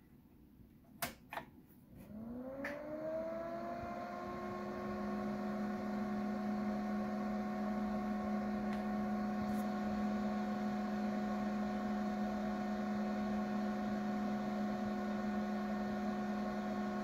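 The power switch of a Dionex ED50 electrochemical detector clicks twice about a second in, then the unit's internal fan spins up, its hum rising in pitch over about a second and settling into a steady hum as the instrument powers up.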